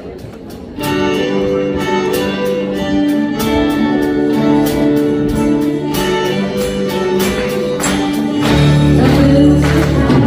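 Live pop band starting a song about a second in: sustained chords over a steady beat of sharp hits. The bass comes in strongly near the end and the music gets louder.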